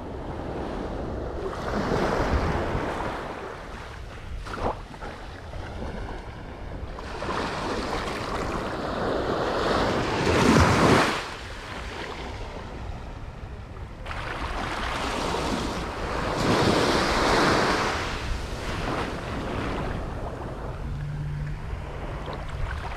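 Ocean surf breaking on a sandy beach in slow swells, with wind on the microphone; the loudest wave breaks about ten seconds in.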